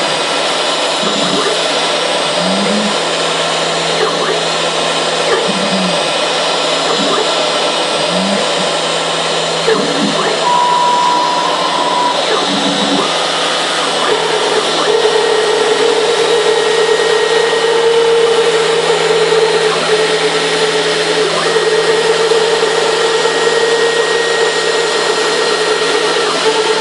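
CNC router milling a 3D model: the spindle runs steadily under load while the axis drive motors whine in changing tones as the cutter moves. In the first half there are short rising and falling tones; from about halfway through, one held whine runs on.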